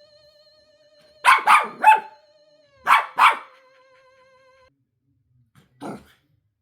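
Dog barking: three quick barks about a second in, two more a second later, and a softer single bark near the end. Under them, a faint wavering electronic tone from a motion-triggered Halloween decoration plays and cuts off about two-thirds through.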